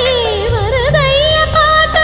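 Background music: an Indian song with a wavering, ornamented melody that slides down about half a second in, over a steady low accompaniment.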